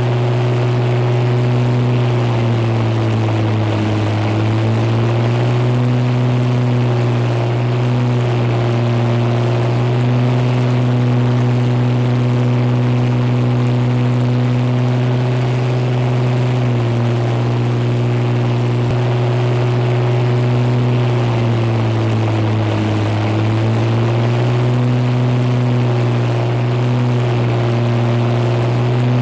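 Propeller-driven piston aero engine droning steadily in flight, laid on as a Spitfire's engine, its pitch dipping briefly twice.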